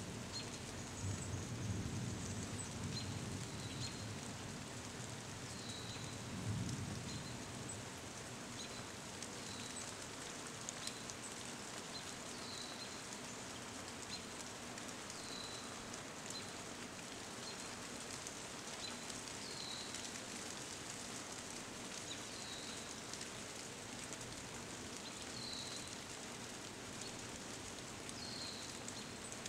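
Steady rain falling on tree leaves, a soft even hiss with scattered drop ticks. A short high chirp repeats about every three seconds, and a low rumble swells and fades in the first several seconds.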